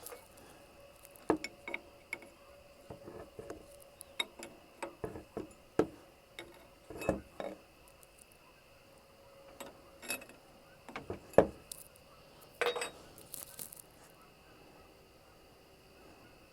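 Hand tools working metal: irregular clinks and knocks of a wrench on a hose fitting, a dozen or so separate sharp clicks, falling quiet over the last few seconds. The hose is being taken off because it was losing oil.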